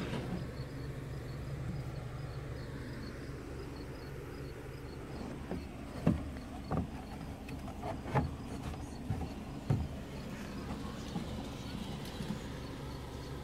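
A handful of sharp knocks and taps on the kayak's plastic hull and fittings as it is handled, about five spread over four seconds midway, over a faint steady low hum.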